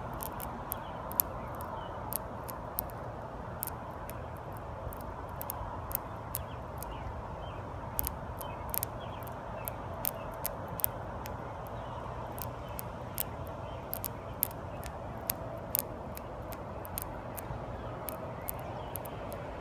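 Sharp, irregular crunching clicks, about two or three a second, from a swamp darner dragonfly chewing its insect prey, over a steady low background hum.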